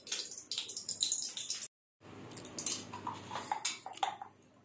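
Hot oil in a kadai on a gas flame spitting and crackling in irregular pops, because water has got into the oil. The crackling is broken by a brief silent gap just under two seconds in and dies away near the end.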